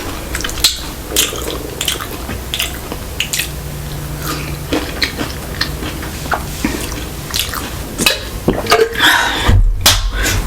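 Close-miked mouth sounds of chewing sushi: a string of short, wet clicks and smacks. A low bump comes near the end.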